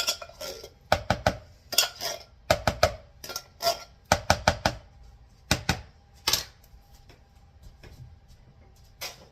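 Spoon clinking and knocking against kitchenware in a quick, irregular series, quietening about six seconds in.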